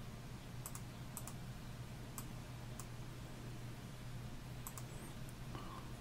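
Computer mouse clicking faintly a handful of times, some clicks in quick pairs, over a low steady hum.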